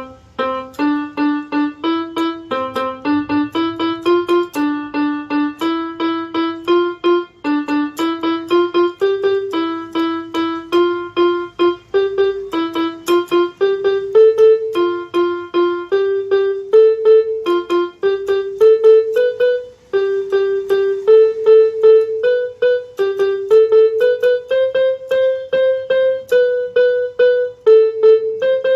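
Electronic keyboard on a piano sound playing a simple beginner's melody one note at a time, at about two to three notes a second, the line climbing gradually higher through the passage.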